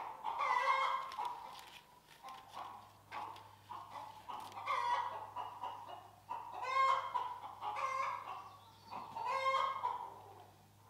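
Chickens calling again and again: about five loud clucking calls a second or two apart, with softer clucks between them.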